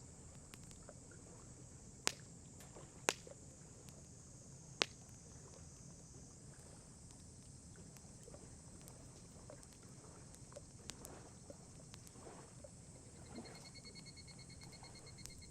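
Wood campfire crackling, with three sharp pops a second or so apart early on and fainter scattered ticks.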